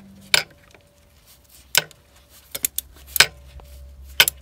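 A hand tool clinking and clicking against metal engine parts while loosening the EGR valve: about half a dozen sharp metallic clicks at uneven intervals, two of them in quick succession.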